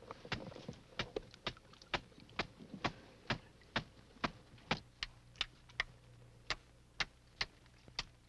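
Repeated sharp knocks of wood on wood as brush poles are driven down into a herring weir's brush fence. The knocks come in a quick cluster at first, then settle to an even beat of about two a second.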